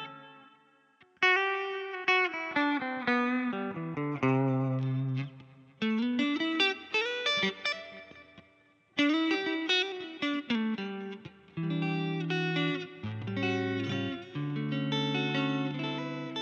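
Electric guitar played through a Hotone Ampero II Stage multi-effects unit set to its Tape Delay S model. It plays melodic phrases of notes and chords, with brief pauses about a second in, near six seconds and near nine seconds.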